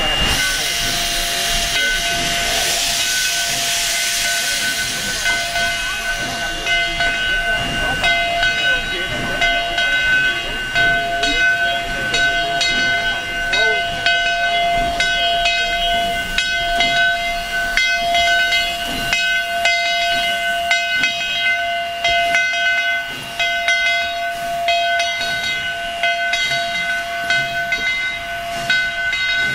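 Standing Virginia & Truckee No. 29, a 2-8-0 steam locomotive, hissing steam, with a steady whine of several pitches that sets in right at the start. The hiss is strongest in the first few seconds, and irregular sharp knocks or buffets come through from the middle onward.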